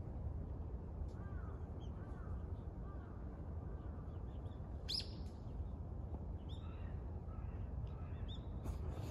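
Wild birds chirping and calling here and there over a steady low outdoor rumble, with one sharp, high, louder call about five seconds in.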